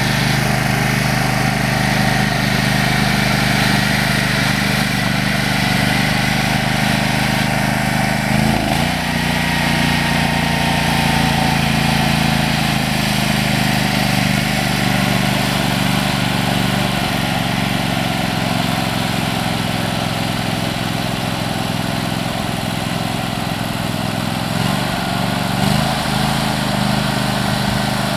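Max six-wheeled amphibious ATV's small engine running steadily as the vehicle wades through a pond, water churning around its wheels. The engine note shifts briefly about eight seconds in and again near the end.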